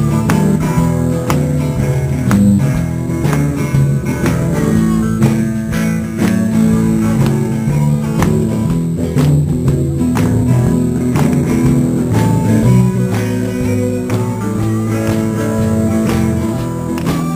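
A live blues band playing: electric guitars over a drum kit.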